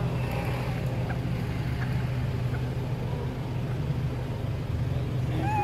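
Steady low drone of an engine running, with a few faint clicks.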